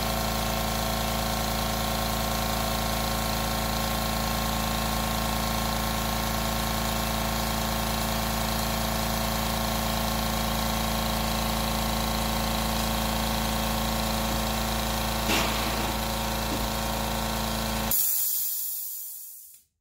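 California Air Tools 8-gallon quiet oil-free air compressor running steadily as it fills its tank. Near the end the motor cuts out at full pressure, about 120 psi, followed by a short hiss of released air.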